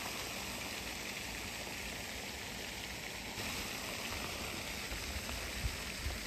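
Steady outdoor background hiss, such as wind across the microphone, with a faint tap near the end.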